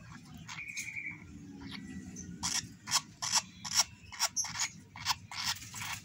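Hand-fed lovebird chick feeding from a syringe. After a short squeak, it makes a rapid run of raspy begging and gulping sounds, three or four a second, from about two seconds in. This is the eager pumping of a hungry chick taking porridge.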